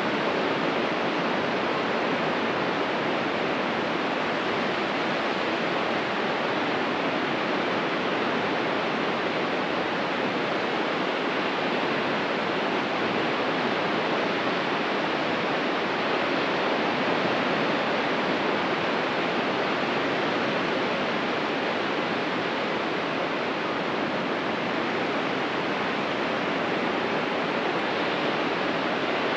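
Ocean surf, a steady wash of breaking waves with no single wave standing out.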